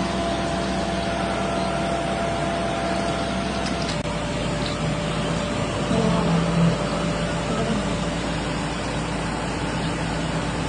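A vehicle engine running steadily, with an abrupt change in its sound about four seconds in.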